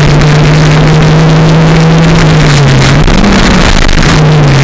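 Toyota 4E-FTE 1.3-litre turbocharged four-cylinder engine pulling hard under load, heard from inside the car over road and wind noise. The revs hold steady, drop about two and a half seconds in, briefly rise, and settle again near the end.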